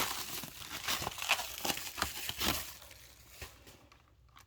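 Plastic packaging of a new RAM memory kit crinkling and crackling as it is handled and opened, dying away in the last second.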